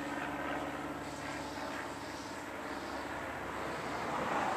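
Back-yard ambience dominated by a distant engine drone: a steady hum that slowly fades, with a louder rushing swell near the end.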